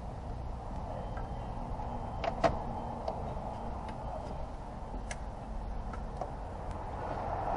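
A few short sharp clicks and small knocks of parts and tools being handled in a car's engine bay, the loudest about two and a half seconds in, over a steady low workshop hum.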